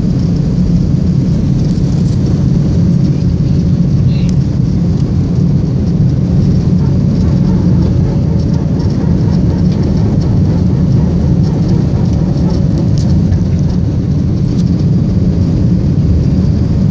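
Airbus A321-200 jet engines at takeoff power, heard inside the cabin as a loud, steady, deep rumble with a faint hum above it.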